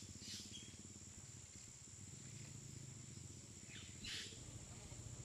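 Quiet evening ambience with a steady high insect drone. About four seconds in there is a short clink as a metal mess tin is set down on the titanium grill over the small woodstove.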